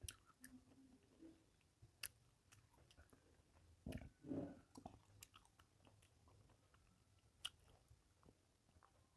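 Faint mouth sounds of someone eating fish curry with rice: soft chewing and sucking at fish bones, with scattered small clicks and a short louder stretch of chewing about four seconds in.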